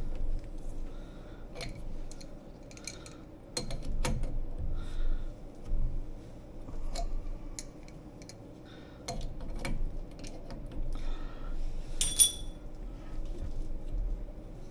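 Threaded metal pipe fittings being screwed together by hand: a male-to-male nipple adapter is twisted until tight, giving irregular metallic clicks and short scrapes, with one sharper ringing clink near the end.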